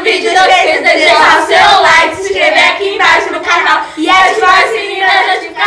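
Several young girls singing together, clapping their hands along.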